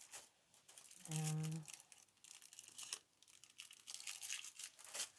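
Crinkling and rustling of thin plastic packaging as makeup brushes in plastic sleeves are handled, in quick irregular crackles. A short hummed "mm" comes about a second in.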